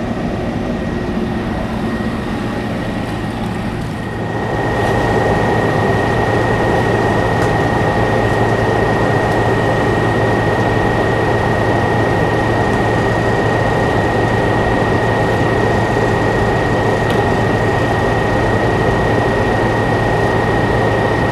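Evaporative (swamp) cooler running with its blower bearings freshly greased: a steady rush of fan air over a low motor hum and a thin, high, constant whine. It gets louder about four seconds in and then holds steady.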